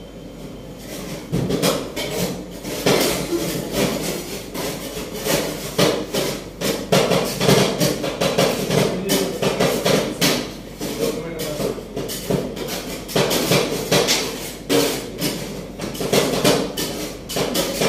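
Two metal spatulas chopping and scraping ice cream mix on a chilled steel rolled-ice-cream pan. The rapid, irregular metallic clacking starts about a second and a half in.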